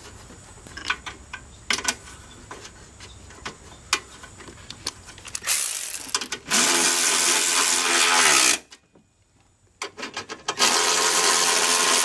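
Cordless electric ratchet running 10 mm bolts in, in two runs of about three seconds and then two seconds, its motor whine steady under load. Before the first run, light clinks of bolts and tools being handled.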